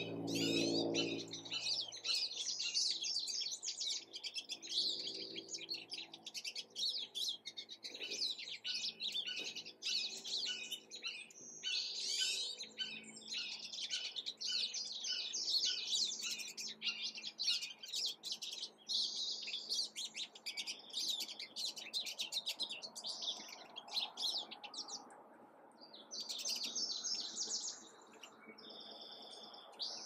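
Small songbirds chirping and twittering in a rapid, almost continuous run of short high notes, thinning out in the last few seconds.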